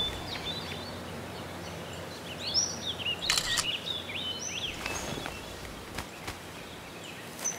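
Small birds chirping in woodland over a steady outdoor hiss, with short rustling noises about three and five seconds in.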